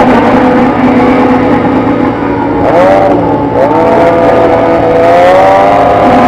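Motorcycle engine running loud under way, its pitch dipping and climbing again near the middle and rising slowly through the second half as it revs up.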